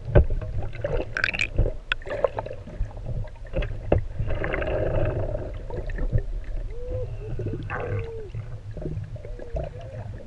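Muffled water sloshing and gurgling against a camera held in the sea, with scattered knocks and a constant low rumble.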